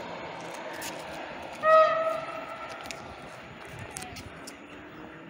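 A train horn sounds one short blast, about half a second long, about two seconds in, over the steady noise of railway traffic.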